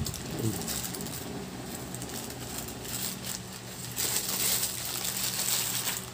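Crinkly paper sandwich wrapper rustling in the hands while a bite is chewed, the rustle turning louder about four seconds in as the wrapper is crumpled up.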